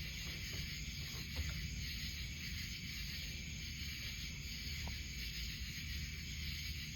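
Steady high-pitched hiss of outdoor background over a low rumble, with a few faint ticks.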